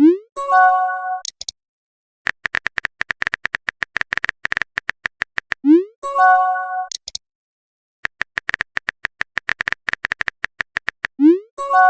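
Messaging-app sound effects repeating in a cycle: a run of rapid keyboard-typing clicks for about three seconds, then a short rising whoosh and a bright chime as a message is sent. The cycle comes round three times, about every six seconds.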